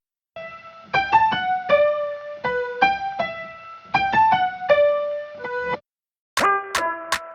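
Background music: a light electric-piano melody of short notes in a repeating phrase, with brief silences near the start and about six seconds in.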